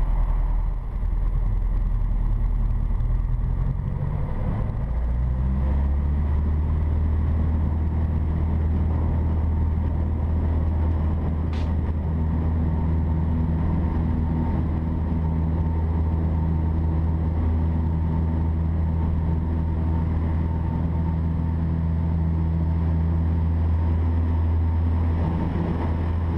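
A Piper Cherokee's single piston engine and propeller, heard from inside the cockpit. The pitch climbs over the first few seconds as takeoff power goes in, then holds steady at full power through the takeoff roll and climb-out.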